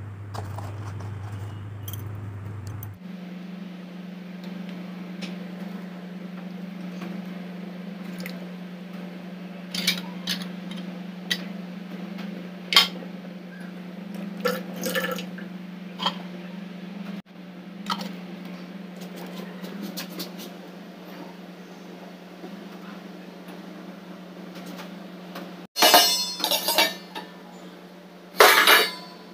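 Stainless-steel dishes and a steel tiffin box clinking and clattering during handling, with scattered knocks and the loudest clatter near the end as the lidded box is set into a pan of water. A steady low hum runs underneath.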